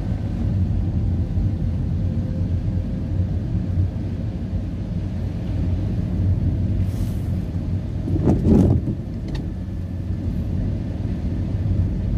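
Car driving on a wet road, heard from inside the cabin: a steady low rumble of engine and tyre noise, with a brief louder rush and a few clicks about eight seconds in.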